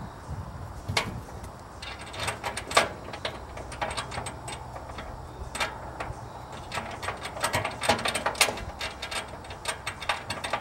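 Irregular metallic clicking and clattering, in quick runs at times, from the mounting hardware being tightened to hold the motorcycle wheel chock down on the aluminium trailer floor.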